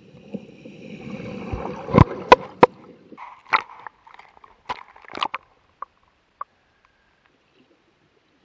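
Floodwater sloshing and gurgling around a camera mounted low on a bicycle being ridden through the water, with three sharp knocks about two seconds in and scattered bubbly pops and clicks after.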